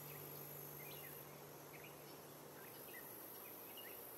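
Faint outdoor ambience: a low background hiss with scattered short, faint high chirps, and a faint low hum that stops about a second in.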